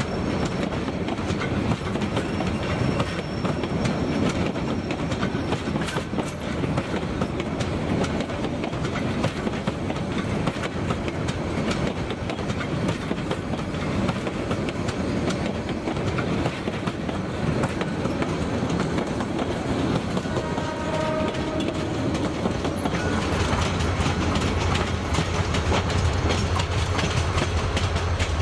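Tista Express passenger train's coaches rolling by, wheels clattering steadily over the rail joints. A deeper steady hum joins about three-quarters of the way through.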